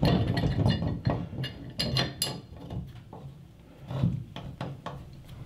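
Pipe wrench working a corroded washer-hose end connector loose on a supply valve's threads: a quick run of sharp metal clicks and knocks over the first two seconds or so, then fewer, softer knocks, one about four seconds in.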